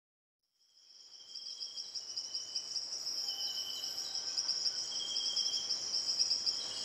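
Night insect chorus, crickets trilling: one steady high, pulsing trill with shorter, lower trills coming and going over it, fading in from silence about half a second in.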